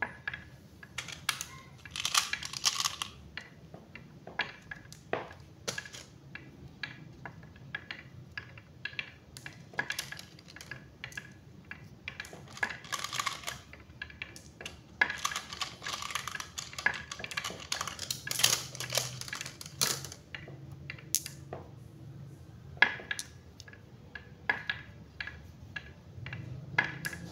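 Marbles rolling down a HABA wooden zigzag slope track, rattling through the grooves and clicking against the wooden rails and against one another as they gather at the end of the run. The clicks come irregularly, in dense runs at times.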